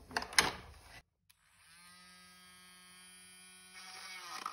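A couple of handling clicks, then a Dremel rotary tool starts up, its pitch rising briefly and settling into a steady motor whine. Near the end it begins grinding into the speaker's plastic housing to widen a hole.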